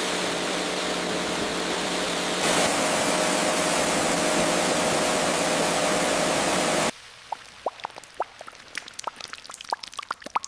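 Pressure washer spraying water in a steady hiss, louder from about two and a half seconds in. It cuts off abruptly near seven seconds, leaving a quieter run of many small, quick wet pops and drips.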